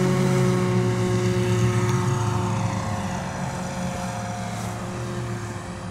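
Radio-controlled model Piper Cub's motor and propeller running at high throttle as the plane lifts off and climbs away, a steady drone that slowly fades with distance. The pilot finds it short of power on the climb.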